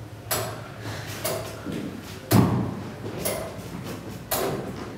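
The restored 1597 Castle Rushen turret clock mechanism ticking: its escapement gives a sharp clack about once a second, each with a short ringing tail. The knock a little past the middle is the loudest and carries a low thud.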